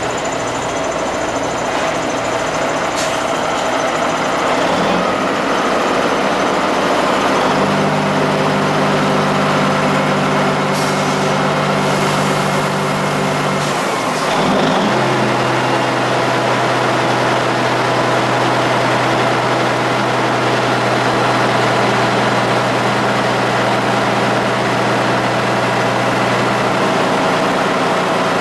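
Freightliner semi tractor's Cummins diesel engine running steadily while the dump trailer is raised to unload; the engine note steps to a lower pitch about halfway through. A few short air hisses come just before that change.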